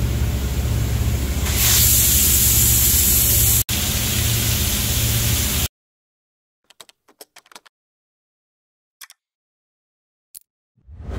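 Hurco VMX 64 vertical machining centre running: a steady low hum under a hiss that grows louder about two seconds in. It cuts off suddenly about halfway through, followed by a few faint ticks and swishes and a soft thud near the end.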